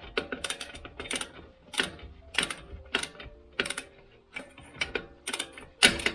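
Socket ratchet clicking in quick bursts, about two a second, as a freed brake caliper mounting bolt is wound out. The last burst, near the end, is the loudest.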